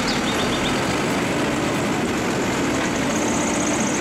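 Automated side-loader garbage truck's diesel engine running steadily under load as its hydraulic arm lifts a wheeled cart and tips it into the hopper.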